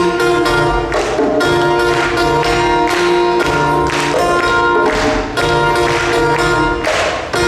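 Live Korean traditional-style ensemble music: sustained pitched notes over a steady beat of percussive strikes.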